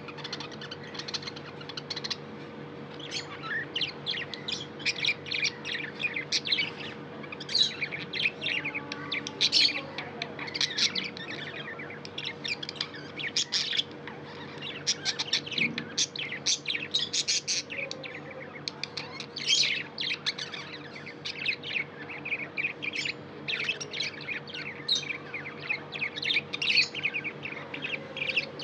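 Pet budgerigars chirping continuously in rapid, high-pitched bursts, over a faint steady low hum.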